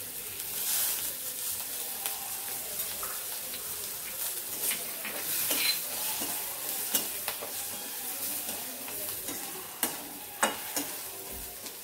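Chopped garlic and green chillies sizzling in hot tempering oil in a metal kadhai. A flat spatula stirs and scrapes them round the pan, with sharp clicks now and then against the metal.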